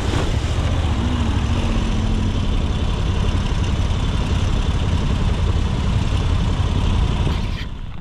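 Adventure motorcycle's engine running as the bike rides out of a shallow river crossing and up the rock bank, with a steady rushing noise over a low rumble. The sound drops away near the end as the bike pulls up.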